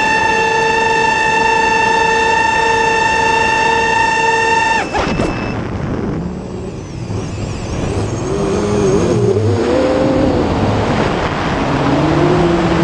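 FPV drone's electric motors whining steadily at a high pitch. About five seconds in the throttle is cut: the whine falls away sharply and gives way to lower, wavering motor tones over a noisy rush as the drone rolls over and dives.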